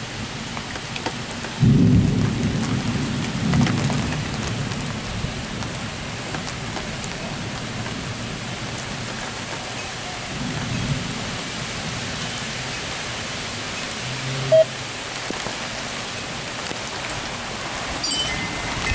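Steady heavy rain with rolling thunder: a loud rumble breaks out about two seconds in and fades over a few seconds, and a fainter rumble follows about ten seconds in. A brief sharp blip comes near the end.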